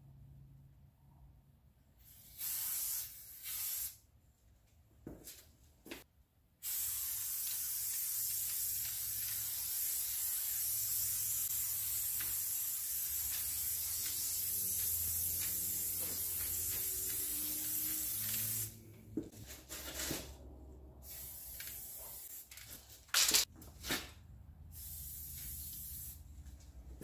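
Aerosol spray paint can hissing as paint is sprayed: a few short blasts, then one long continuous spray of about twelve seconds, then more short blasts.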